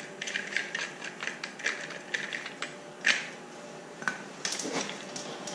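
Scattered small clicks and taps of an angle grinder being handled while its flap disc is changed for a grinding disc, with a sharper click about three seconds in.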